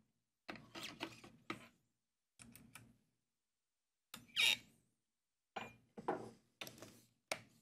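Short clicks and clunks from handling a handheld CNC router's spindle during a bit change to a quarter-inch bit. There is a cluster of them in the first second and a half, a louder one about four and a half seconds in, and several more near the end. The router motor is not running.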